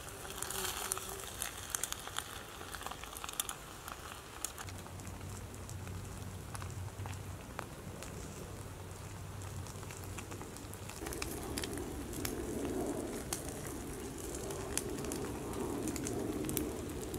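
Rice and chorizo simmering in a stainless steel mug over a burning alcohol stove, with a metal spoon clinking and scraping against the mug as it is stirred, the clinks thickest in the first few seconds.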